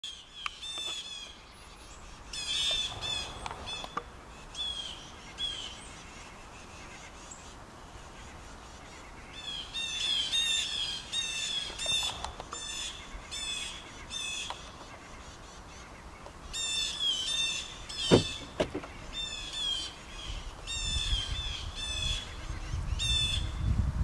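Blue jays giving harsh, repeated alarm calls in bouts, mobbing a hidden predator that the owner takes for an owl or a hawk. A single sharp knock sounds about 18 seconds in, and a low rumble builds near the end.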